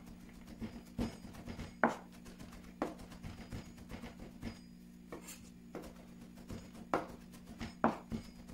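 Chef's knife mincing boletus mushrooms on a plastic cutting board: separate sharp knocks about once a second, over a steady low hum.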